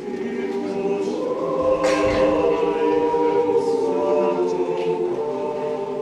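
Mixed choir of men's and women's voices singing sustained chords, coming in at the start and swelling to full volume about two seconds in before easing slightly.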